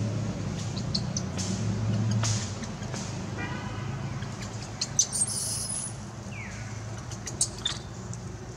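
A steady low engine-like hum, louder in the first couple of seconds. Over it come scattered short clicks and a few brief high chirps and calls, one falling in pitch about six seconds in.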